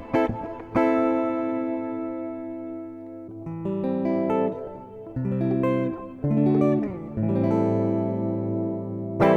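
Guitar played through a DigiTech Polara reverb pedal: a chord strummed about a second in and left to ring out at length, a few picked single notes, then another chord that rings on, and a fresh strum near the end.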